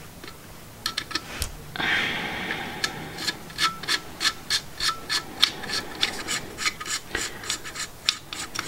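Small metal scraping and a run of light ticks, about three a second from about two seconds in, as a nut is spun by hand down the threaded output terminal stud of a Land Cruiser alternator.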